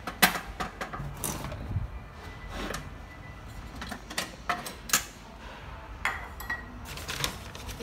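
A steel wok with a little oil in it on the stove: scattered sharp clicks and light metal knocks, about a dozen, as it is handled, over a low steady rumble.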